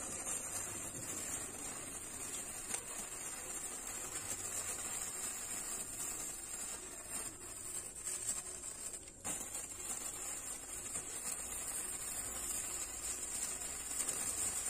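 Two handheld sparklers burning with a steady hiss.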